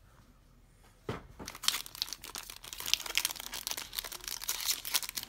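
Foil wrapper of a trading-card pack being torn open and crinkled by hand. The crackling starts about a second in as a dense run of crackles.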